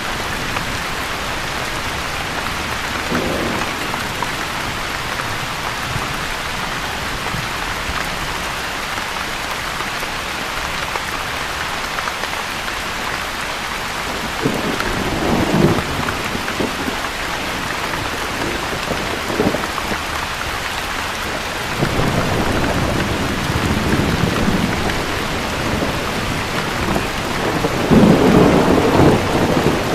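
Steady rain falling, with rumbles of thunder: a short one a few seconds in, more around the middle, and a longer, louder rolling rumble through the second half that peaks near the end.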